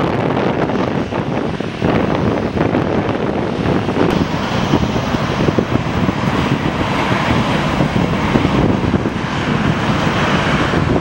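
Strong wind buffeting the microphone, mixed with the steady rush of jet airliner engines.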